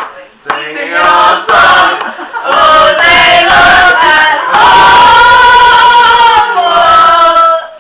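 Voices singing loudly in short phrases, with one long held note in the middle.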